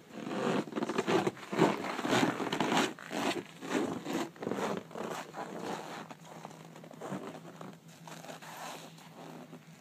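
Footsteps crunching and scuffing in deep, very cold dry snow, with clothing rustle. The strokes come irregularly, loudest over the first few seconds, then grow fainter.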